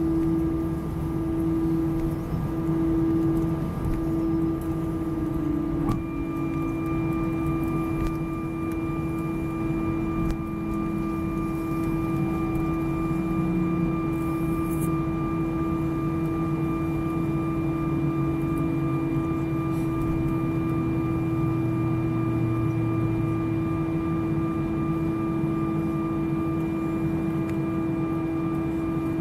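Airbus A319 cabin noise while taxiing, heard from inside over the wing: the jet engines at idle make a low rumble and a strong steady hum. The hum pulses for the first few seconds and then holds steady. About six seconds in, a higher steady whine joins it.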